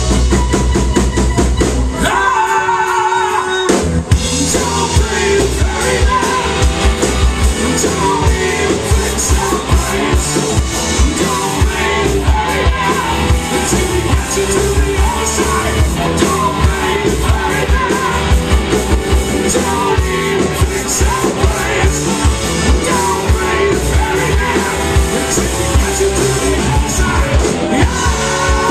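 Live rock band playing loud through a PA: electric guitars, keyboards, drum kit and a sung lead vocal. About two seconds in the bass and drums drop out briefly, leaving a held keyboard chord, and the full band comes back in about four seconds in.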